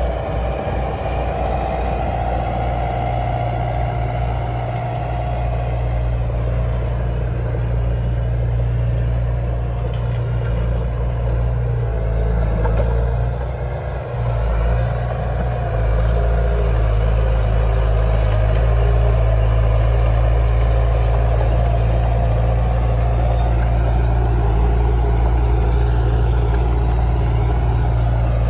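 Heavy diesel engine of earthmoving machinery running steadily at a landfill site, a low drone that dips briefly about halfway through and then runs a little louder to the end.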